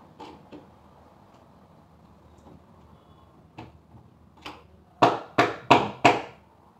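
Knocks on the board panels of a box bed's storage compartment as they are fitted: a few light taps, then four sharp knocks in quick succession near the end.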